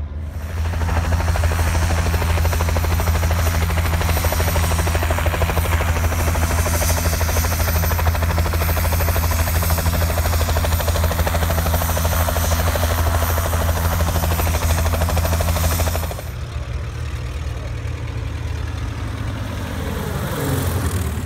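Light twin-engine propeller aeroplane running at steady high power on the runway, a deep even engine-and-propeller drone. About sixteen seconds in it cuts to a quieter biplane engine, whose note falls steeply in pitch as the biplane passes overhead near the end.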